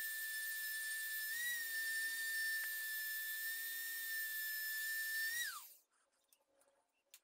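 Handheld rotary tool running with a steady high whine as its small bit works a chisel blade. About five and a half seconds in it is switched off and its pitch falls as it spins down, followed by a few faint clicks of handling.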